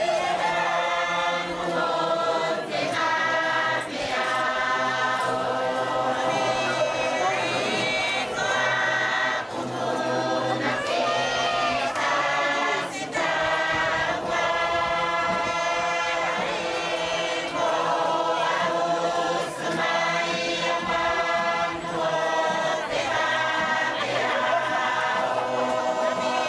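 Many voices singing a Tuvaluan fatele together in chorus, a full group song that keeps going steadily.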